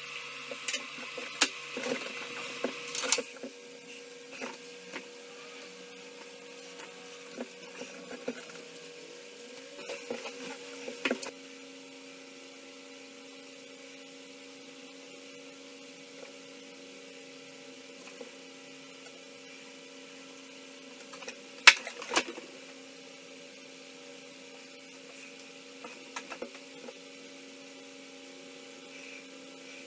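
Scattered light knocks and clicks of hands working on an old wooden crate, with two sharper knocks in quick succession about two-thirds of the way in, over a steady electrical hum.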